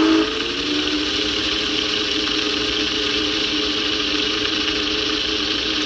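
400 W three-phase alternator run as a motor at 69 V, settling at speed just after the start and then running steadily with a whine over a hiss. Its bearings have just been repacked with grease on one side, and the owner finds it sounds quieter for it.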